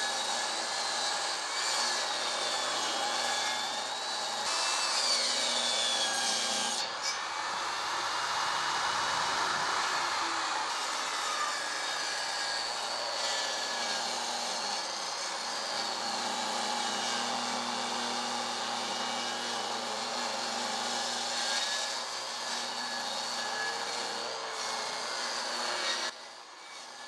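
Table saw running and ripping pine boards along the fence to straighten their second edge into 2x4s: a steady motor whine with cutting noise. It drops away about a second before the end.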